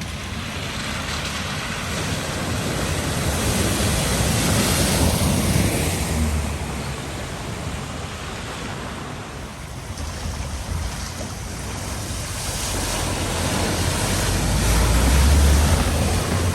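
Rushing, splashing water as a vehicle drives through a deep flooded ford, with a low engine rumble. The water noise swells twice, about five seconds in and again, loudest, near the end.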